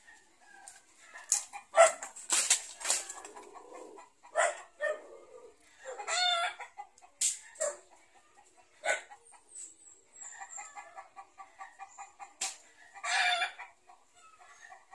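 Chickens clucking, with a run of rapid clucks partway through. Mixed with this are loud, sharp snaps and rustles as lanzones fruit stems are cut and the branches are moved.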